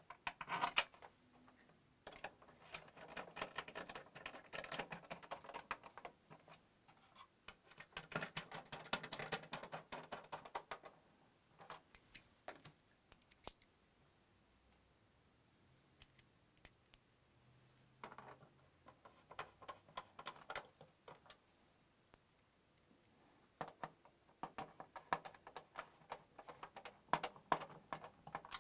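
A stiff brush scrubbing the plastic parts of a PS4 case in three spells of a few seconds each, with scattered clicks and taps of parts being handled in between.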